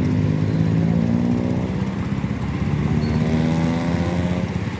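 Vehicle engine running under load, its pitch rising slowly as it accelerates.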